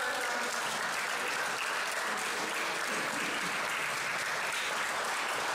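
An audience of students clapping, a steady round of applause.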